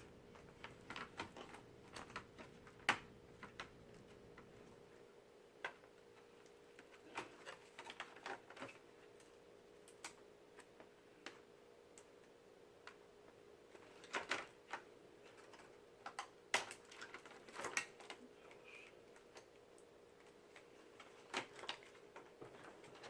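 Irregular light clicks and taps of plastic laptop parts and a cable being handled and repositioned inside an opened Toshiba Satellite laptop, over a faint steady hum.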